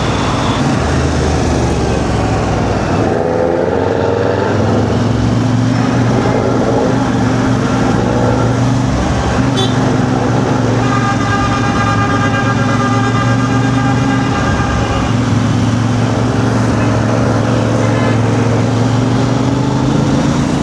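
CF Moto 450MT motorcycle's parallel-twin engine running steadily in heavy traffic. A vehicle horn sounds for a few seconds about halfway through.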